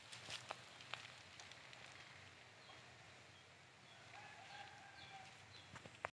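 Near silence, with a few faint ticks in the first second and then a distant rooster crowing faintly about four seconds in, one call lasting about a second.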